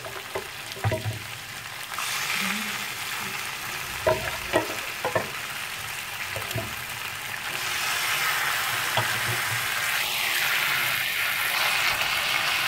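Beef chops sizzling in oil in an iron karahi while a spatula stirs them, with several short knocks of the spatula against the pan. The sizzle grows louder about two seconds in and again past the middle.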